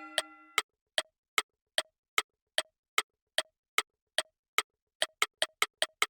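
Clock-like ticking sound effect: sharp, evenly spaced ticks at about two and a half a second, which speed up to about five a second near the end. Before the ticks begin, a ringing chime chord fades out in the first half second.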